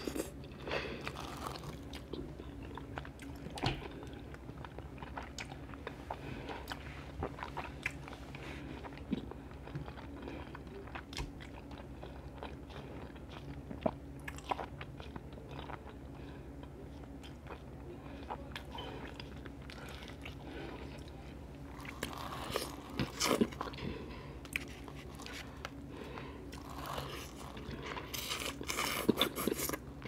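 Close-up mouth sounds of a person eating fettuccine Alfredo with shrimp: wet chewing and smacking with many small clicks. The eating sounds are louder for a few seconds about two-thirds of the way in and again near the end, over a faint steady hum.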